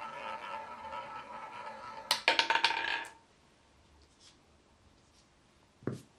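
Roulette ball rolling round the wheel's track with a steady whir, then about two seconds in it drops and clatters against the deflectors and pocket frets for about a second before settling in a pocket. A single dull thump near the end.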